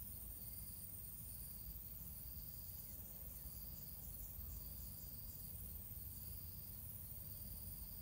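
Faint high chirping, insect-like, repeating about once a second over a steady very high hiss, with a short run of quick faint high ticks in the middle.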